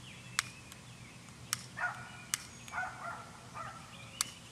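A dog barking a few times, short barks spaced about a second apart, with four sharp, separate clicks or snaps in between.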